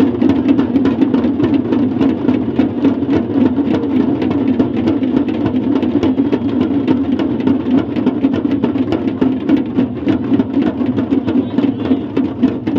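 Several large rope-laced dhol-type drums beaten together in fast, dense rhythm, making a loud, continuous drumming.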